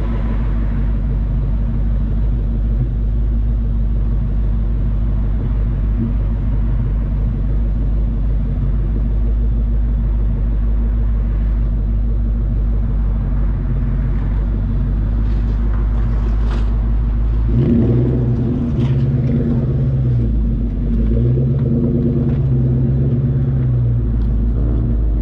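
Exhaust note of a 1999–2004 Mustang GT's 4.6-litre V8 through a DNA Motoring cat-back with a JBA off-road H-pipe, heard at the tailpipe while driving. A steady low drone at cruise, then in the last third the engine speed rises and falls twice.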